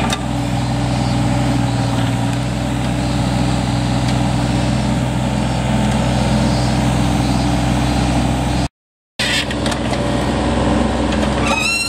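Mini excavator's diesel engine running steadily while the machine works its bucket and clamp attachment in rubble. The sound cuts out completely for about half a second roughly three-quarters of the way through.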